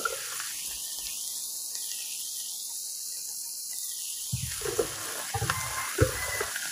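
Small freshwater shrimp with garlic frying in a steel wok, a steady faint sizzling hiss. A click right at the start and a few soft knocks between about four and six and a half seconds in.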